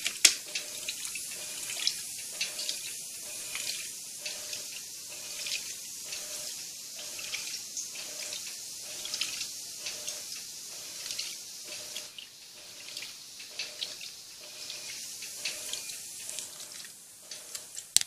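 Water sloshing and splashing inside the tub of a Turbo Economia 10 kg top-loading washing machine as it agitates two blankets at the high water level, with many small irregular splashes and drips.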